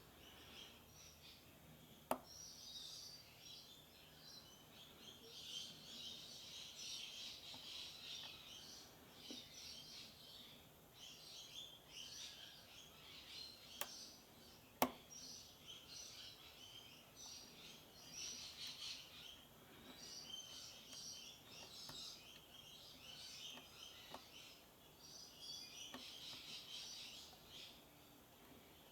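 Faint birds chirping throughout, with a sharp click about two seconds in and two more close together around the middle, the last of these the loudest.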